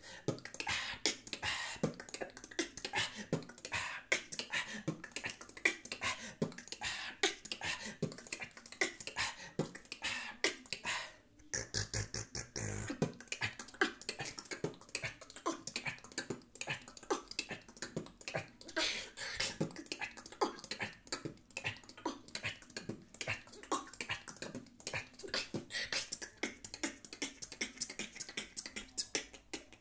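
Solo vocal beatboxing: a fast, unbroken stream of mouth-made clicks, kicks and snares mixed with hollow tongue clops, with a brief pause about eleven seconds in.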